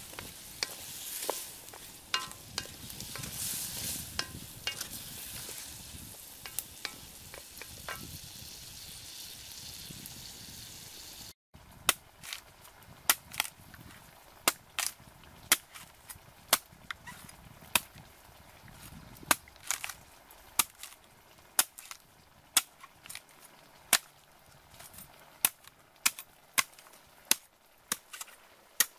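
Potato pieces sizzling in a wok over a wood fire while a spoon stirs them, with light clicks against the pan. After a cut, a cleaver chops into the husk of a green coconut: a steady run of sharp chops, a little under two a second.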